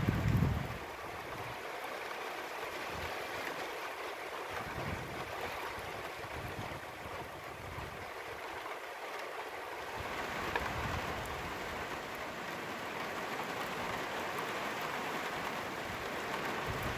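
Steady hiss of rain falling on a wet flat roof, with wind buffeting the microphone in the first second.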